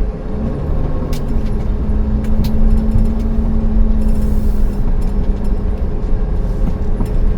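Engine and road noise of a 2008 Pleasure-Way Ascent camper van, heard from inside the cab while driving: a steady drone with a low hum, plus a few light clicks and rattles.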